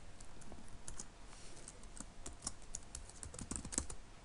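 Typing on a computer keyboard: a run of irregularly spaced keystrokes, several a second.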